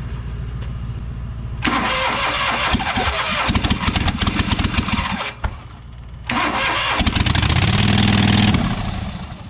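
New Holland LS140 skid steer being cranked on a cold start that it is slow to take: two long cranking bursts with a short break between them, the engine sputtering and trying to catch.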